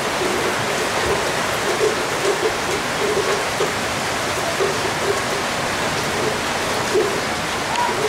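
Heavy rain falling steadily, a dense even hiss, with irregular short taps of drops throughout.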